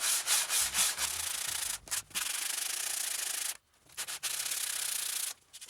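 Sandpaper rubbed by hand along a hardened 1095 steel knife blade. It starts with quick back-and-forth strokes, about five a second, then runs as a steadier scrape with short breaks, stopping briefly about three and a half seconds in.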